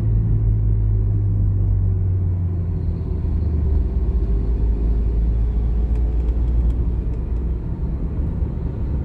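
Car cabin noise while driving: low road and tyre rumble with a steady engine drone, the engine note dropping a few seconds in.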